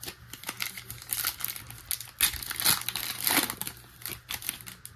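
Plastic foil wrapper of a trading-card pack crinkling and tearing as it is opened by hand, in irregular crackles that are loudest through the middle.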